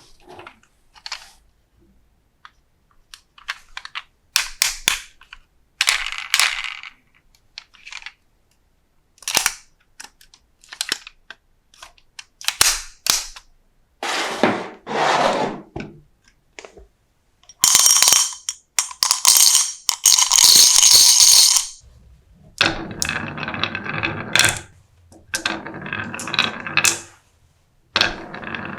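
Marbles clacking and rolling down a marble run, with many sharp clicks and several longer rattling runs lasting a few seconds each.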